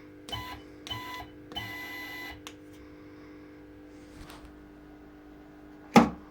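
CNC machine's stepper motors whining through three short moves in the first two seconds, over a steady hum. A single sharp knock near the end is the loudest sound.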